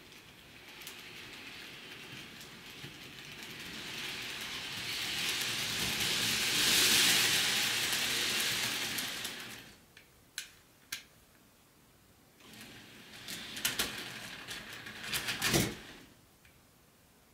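Bachmann N-scale Empire Builder model train running on its track, its small-motor and wheel noise rising as it comes close and fading as it moves away. A second, shorter pass follows, with several sharp clicks, the loudest near the end.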